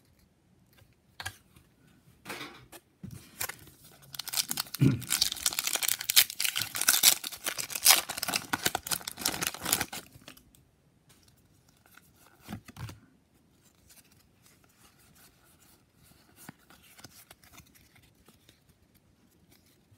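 A Pokémon booster pack's foil wrapper crinkling and tearing open for several seconds, then quieter rustling as the cards are handled.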